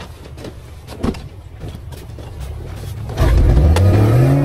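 Boat outboard motor throttling up about three seconds in, its pitch rising steadily as it gathers speed. Before that there is a low rumble with a few knocks.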